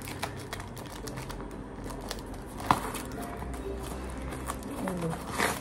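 Soft background music under the crinkle and rustle of a paper-and-card parcel being handled and torn open by hand, with scattered small clicks and one sharper snap about halfway through.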